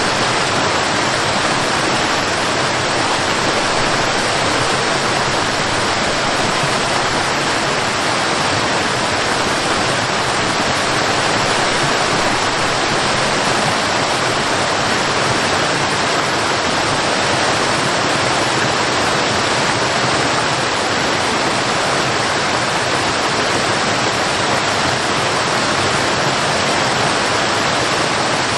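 Waterfall, water falling and rushing in a loud, steady, unbroken roar.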